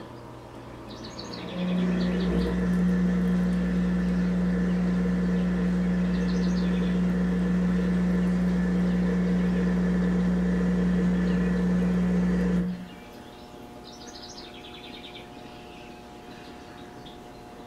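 A motor humming loudly and steadily, switching on about a second and a half in and cutting off abruptly about thirteen seconds in. Short bird chirps come through a few times.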